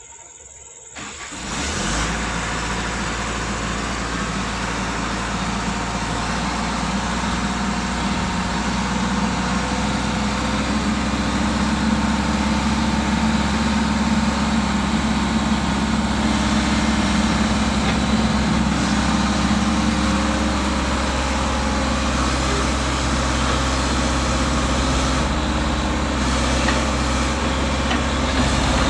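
Volvo excavator's diesel engine coming up about a second in, then running steadily under load while the machine works.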